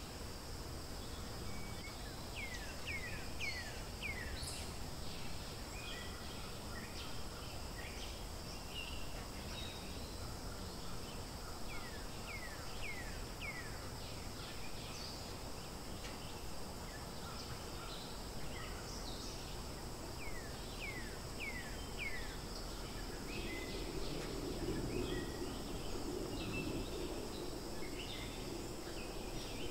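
Forest ambience: a steady high insect drone, with a bird calling a run of four or five quick falling notes three times, and scattered short chirps. A louder low rushing noise comes in near the end.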